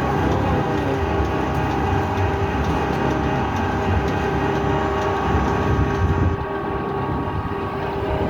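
Brick-making machine running: a steady machine hum with several steady tones over a dense low rumble, dropping a little about six seconds in.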